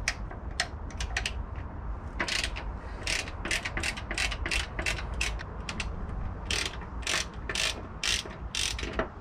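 Hand ratchet clicking as it turns out the bolts on a motorcycle's rear fender. A few separate clicks at first, then a steady run of about three clicks a second that slows near the end.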